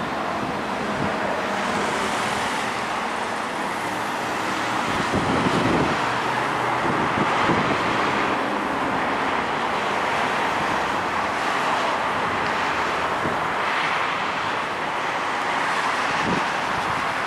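Steady road traffic noise from cars passing on a busy street, swelling a little as vehicles go by.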